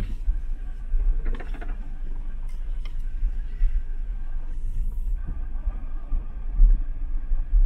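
Car driving slowly along a rough forest dirt road: a steady low rumble of engine and tyres, with a few scattered clicks and knocks.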